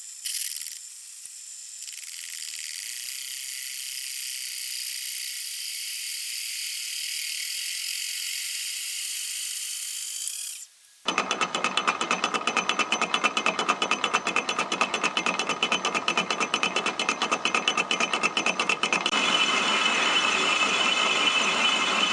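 Power saw with a reciprocating blade cutting through a thick hot-rolled steel bar. First comes a steady high-pitched hiss, then about 11 seconds in an abrupt switch to a loud, very fast, even rattling of the blade strokes.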